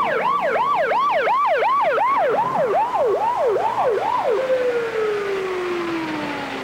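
Police car siren in a fast yelp, its pitch rising and falling about three times a second, then switched off about four seconds in and winding down in one long falling tone.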